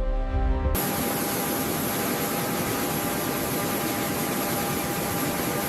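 Music cuts off abruptly less than a second in. It is replaced by the steady rushing noise of an aircraft turbine engine, with a constant high whine.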